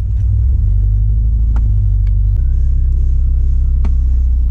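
Honda Prelude's engine running at idle, a steady low rumble whose note shifts slightly a little over halfway through, with a few faint clicks. It is running on the newly installed transmission and clutch as the clutch is tried.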